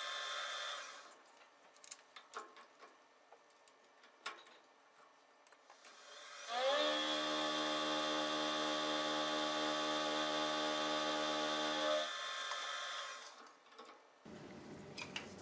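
Benchtop milling machine's spindle motor winding down at the start, then a few light clicks and taps. About six seconds in the motor spins up with a rising whine and runs steadily while the end mill cuts a groove in a small brass piece, then winds down about twelve seconds in. Handling rustle follows near the end.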